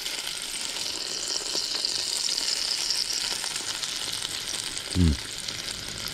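Pork sizzling in a grill pan on a portable gas camping stove, a steady hiss that swells through the middle. About five seconds in comes a brief hum from a voice.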